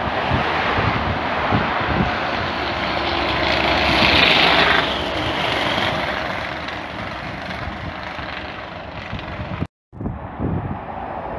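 Semi-trailer truck passing below on a highway: its tyre and engine noise swells to its loudest about four to five seconds in, then fades as the traffic runs on. The sound cuts out for an instant near the end.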